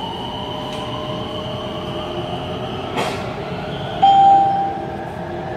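Inside a BTS Skytrain car running along the elevated track: steady running noise with a steady whine. A click comes about three seconds in, and a short, brighter tone sounds about a second later.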